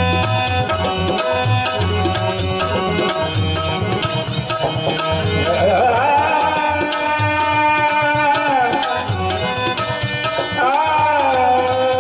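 Marathi devotional bhajan music: tabla keeps a steady rhythm under small hand cymbals, and a long held melody line comes in about halfway through and again near the end.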